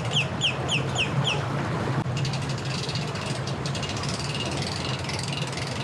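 Boat motor running steadily as the boat is driven up onto its trailer. A bird gives a quick run of short, falling chirps over it in the first second and a half.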